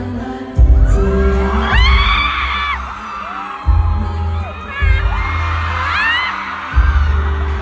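Pop song performed live through a PA: heavy bass and kick drum, with high voices rising twice over the music.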